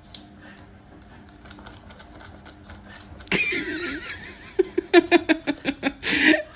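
A sudden loud noisy sound about three seconds in, followed by a person laughing hard in rapid bursts of about five a second.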